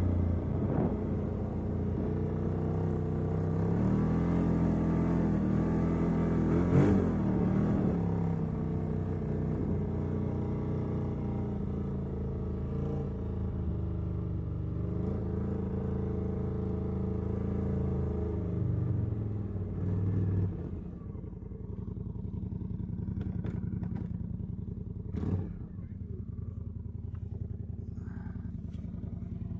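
CFmoto ATV engine running, its pitch rising and falling with the throttle for about the first twenty seconds, then settling to a steadier, slightly quieter note. A short knock sounds about 25 seconds in.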